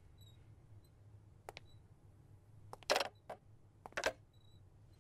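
A few light, short clicks and taps at irregular intervals over a faint steady low hum.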